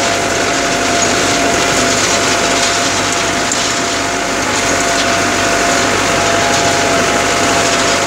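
Farm tractor's diesel engine running steadily under working load, heard from inside the cab, with a steady high whine running over the engine noise.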